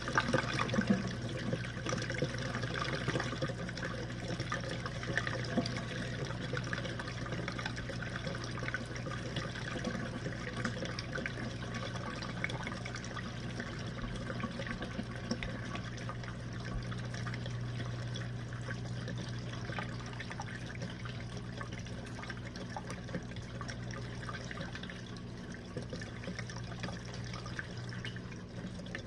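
Jenn-Air dishwasher running its Quick Wash cycle: the pump motor hums steadily while water sprays and splashes inside the tub, easing off slightly near the end.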